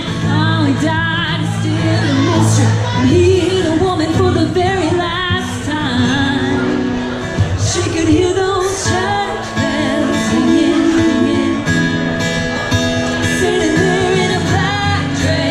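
Live band playing a country-pop song, with a woman singing lead over it.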